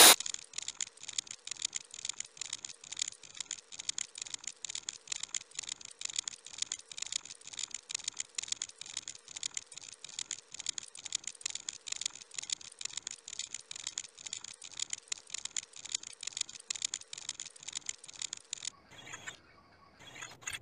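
A fast, steady train of short dry clicks or ticks, several a second, that stops near the end.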